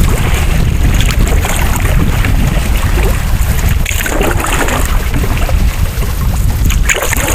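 Wind buffeting the microphone in a steady low rumble while canoeing on open water, with brief water noises around the canoe about midway and near the end.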